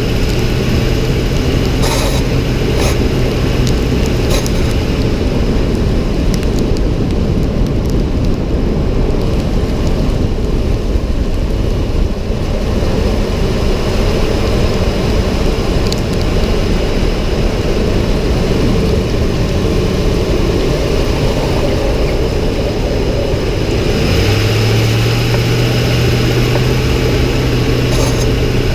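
A 2006 Ford F-150 on the move: loud, steady road and engine noise. A steady low hum sits on top for the first few seconds, drops away, and comes back near the end.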